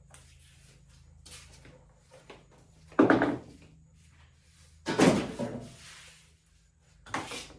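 Three loud clunks, about two seconds apart, each dying away within a second, over a faint low steady hum.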